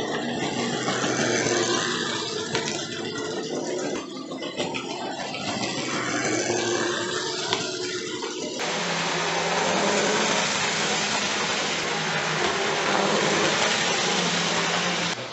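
Hornby OO-gauge model train running on the layout: a small electric motor whirring with wheels rattling along the track. About eight and a half seconds in the sound jumps abruptly to a louder, steadier running noise with a low hum, and it drops back suddenly near the end.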